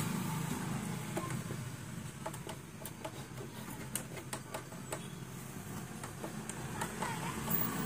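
Faint, irregular light clicks and ticks over a low hum as the front-panel power switch of an Onida CRT TV is pressed and the set comes out of standby and powers on.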